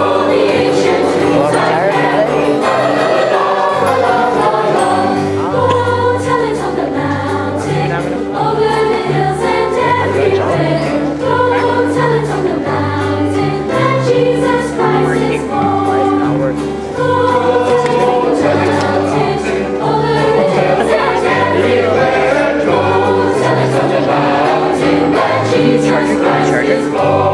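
Mixed school choir singing, many voices together in held phrases, over low sustained bass notes.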